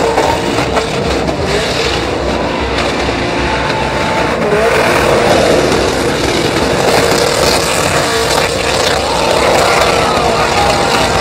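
Vehicles doing burnouts, a pickup truck and a car spinning their tires on pavement with engines running hard: a loud, unbroken din of engine and tire noise.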